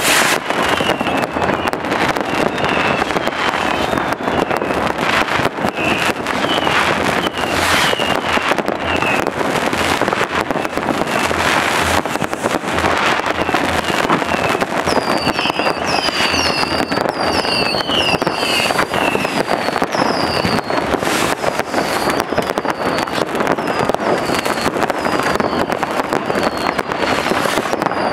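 Dense, continuous crackling and banging of New Year's Eve fireworks, with rockets and firecrackers going off all around. Short high whistles come and go throughout, closer together in the second half.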